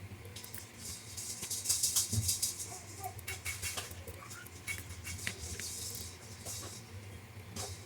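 Small parts rattling and clicking as they are handled, with short hissy rustling bursts that are densest about two seconds in.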